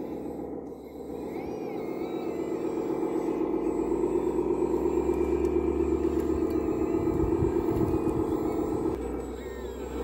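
1/14-scale RC Volvo articulated dump truck driving loaded with gravel, its drive running with a steady drone that grows louder from about a second in and falls back near the end.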